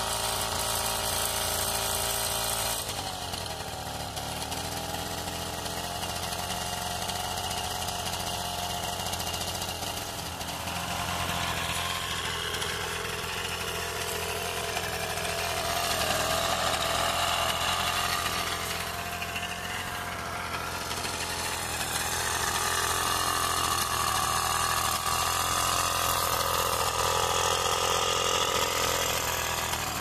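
Small two-stroke engine of a 1956 Husqvarna Novolette moped running on a stand with its rear wheel lifted. It runs steadily at first, then revs up and down, and is louder in the second half.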